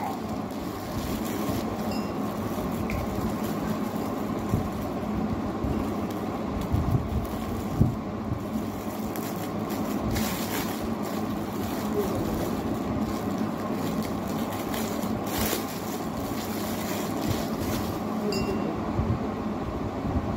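Packaging rustling and crinkling in short spells as a gift is unwrapped by hand, over a steady background hum.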